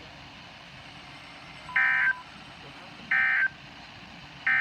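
Emergency Alert System end-of-message data tones: three short bursts of buzzy, warbling digital tones about a second and a third apart, the last cut off by the end. The triple burst marks the end of the broadcast warning.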